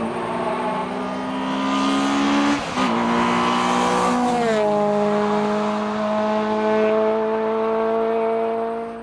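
Honda Integra Type R's four-cylinder VTEC engine at high revs under hard acceleration, rising in pitch with a brief break for a gear change about two and a half seconds in, then holding a steady high note before the throttle is lifted right at the end.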